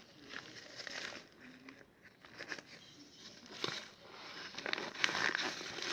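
Glue slime being stirred in a plastic pot: irregular soft clicks and sticky crackles, getting busier and louder over the last two seconds.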